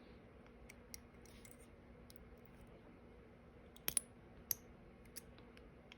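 Small sharp clicks and taps of hand tools and parts on a die-cast model truck cab being worked apart, a few scattered, the loudest a quick double click about four seconds in. A faint steady hum underneath.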